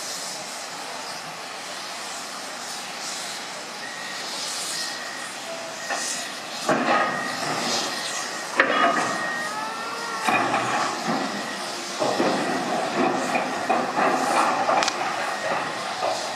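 A cargo ship's steel hull grinding and scraping as it is driven aground onto the beach. A steady hiss comes first; the noise grows loud about seven seconds in, with a sharp bang a couple of seconds later.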